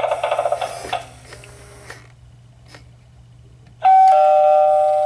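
Electronic two-note ding-dong doorbell chime from a Gemmy Halloween animated eyeball doorbell prop, sounding suddenly near the end after a few faint clicks. It comes after a rattling buzz that fades out about a second in.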